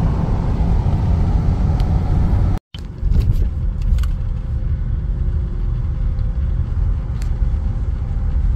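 Steady low rumble of a moving car's road and engine noise heard from inside the cabin. It drops out completely for a moment a little over two and a half seconds in, then carries on.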